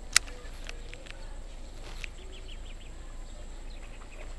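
A baitcasting reel gives one sharp click just after the start as the angler begins to work the lure, followed by quiet outdoor background with a quick run of faint high chirps about halfway through.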